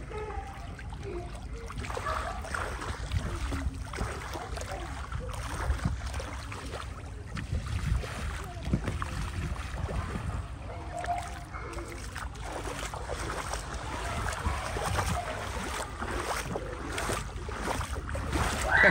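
Shallow seawater splashing and sloshing around a giant inflatable water-walking ball as two children scramble and tumble inside it, with small irregular splashes and knocks, over a steady low rumble of wind on the microphone.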